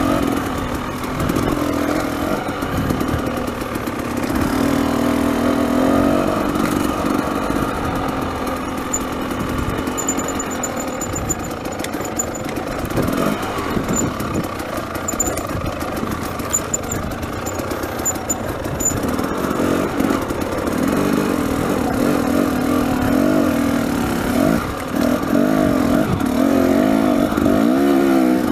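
Dirt bike engine running under constantly changing throttle, its pitch rising and falling as the bike works along rocky single-track.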